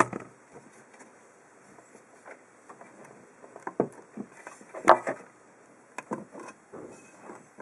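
Sheet-metal amplifier cover of a Logitech Z-680 subwoofer being bent by hand: scattered clicks and knocks, the sharpest at the start and about five seconds in.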